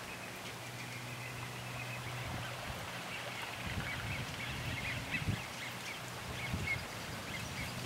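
A large flock of American coots calling on a pond, many short scattered chirps and calls, over a low steady hum.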